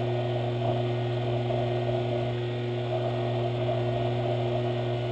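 Sherline benchtop metal lathe running steadily at high speed with a constant hum, while a hand file held against the spinning brass rod cuts into it with a soft, uneven scraping.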